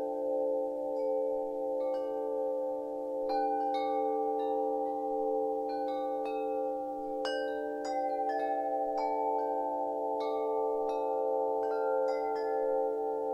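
Ambient music for the dance: chime notes struck at irregular moments ring out over a steady, gently pulsing drone.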